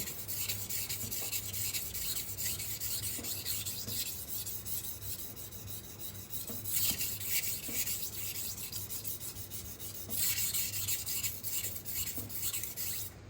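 Steel kitchen-knife blade being stroked back and forth across a 1000-grit Gritomatic whetstone: a steady gritty scraping, louder in stretches, that stops suddenly at the end.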